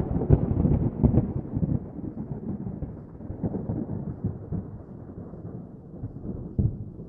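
Rolling thunder: a crackling rumble, loudest in the first second or so, that gradually fades.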